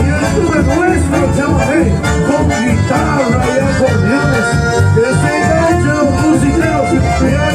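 Live folk band playing Latin American music with several acoustic guitars, loud and continuous.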